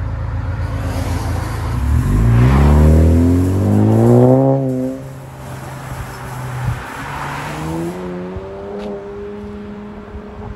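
2016 Chevy Malibu LT's 1.5-litre turbocharged four-cylinder with a muffler-delete dual exhaust, idling and then accelerating away hard. The exhaust note rises, drops at an upshift about halfway through, rises again, then fades as the car moves off.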